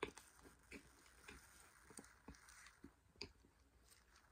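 Faint mouth sounds of someone chewing a mouthful of powdered starch: soft, irregular clicks about two or three a second.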